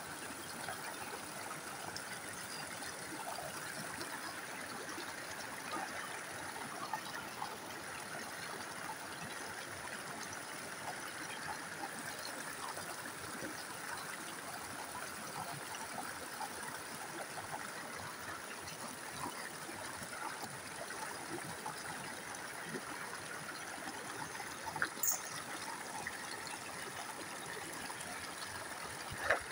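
Shallow rocky creek flowing steadily over and between stones, an even rushing trickle of water. A brief sharp click stands out near the end.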